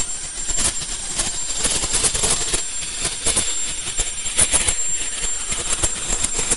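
Ultrasonic rotary welding machine and its conveyor running on an automated line: irregular mechanical clicking and clatter over a steady high-pitched whine.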